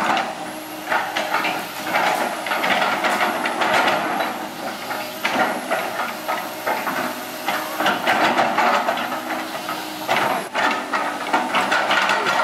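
Komatsu PC160LC crawler excavator's diesel engine running under load, with hydraulic hiss and the clatter and scrape of the bucket and steel tracks working through soil.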